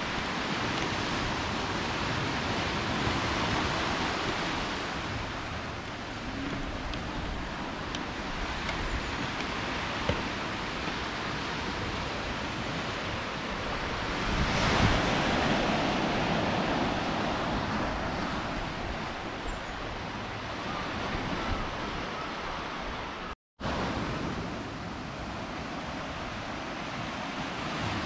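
Steady wash of sea surf breaking on a rocky, pebbly shore. It swells louder about halfway through, and the sound drops out for a split second about four-fifths of the way through.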